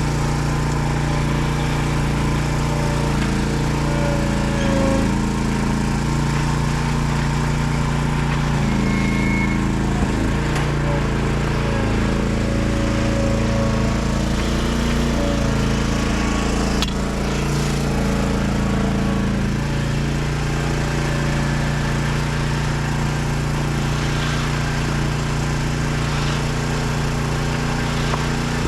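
An engine running steadily, its pitch shifting slightly now and then, with a single sharp knock near the end.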